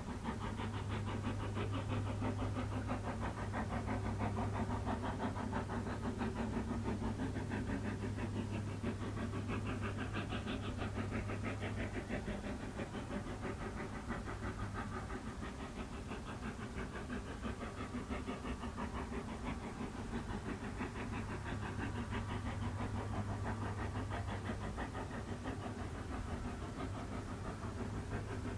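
Brienz Rothorn Bahn rack steam locomotive climbing the mountain grade, its exhaust blast going as rapid, steady, even chuffs, with a steady low hum underneath.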